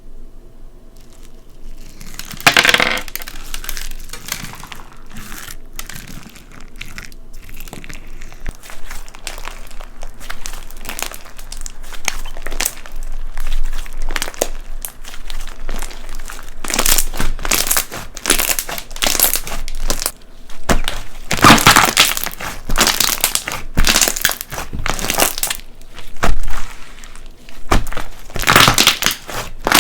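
Slime packed with perler beads (small plastic fuse beads) being squeezed and pressed, giving crunchy crackling in repeated bursts. The crackling grows denser and louder in the second half.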